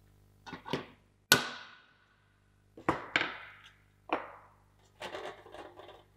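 Hammer blows on a punch knocking out the breaking point at the centre of a black plastic damper gear: several sharp strikes, the loudest about a second in with a short metallic ring. Near the end, tools are set down on the workbench and parts are handled with light clattering.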